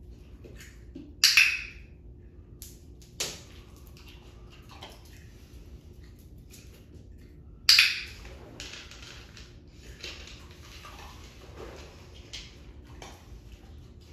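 A puppy's paws and claws on a small wooden board lying on a hard floor: two loud clattering knocks, about a second in and near eight seconds, each dying away within half a second, with a lighter knock and scattered soft taps and claw clicks between.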